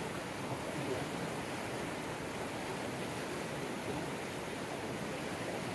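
Steady rushing of a river swollen with flood water: an even wash of water noise with no breaks.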